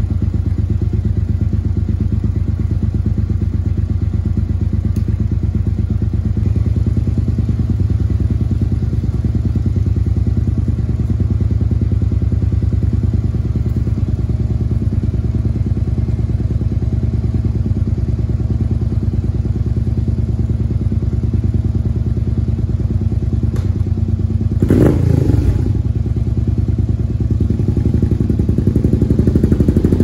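Suzuki SV650 V-twin with a carbon M4 exhaust idling steadily. About 25 seconds in there is a single clunk, and near the end the engine pulls away with the bike.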